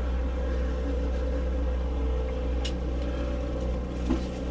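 Sportfishing boat's engine idling with a steady low hum. A light click sounds a little past halfway and a brief knock near the end.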